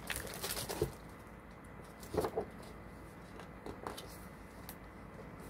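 Faint rustling and soft knocks of a hardcover picture book being handled and its pages turned, in a few short scattered bursts.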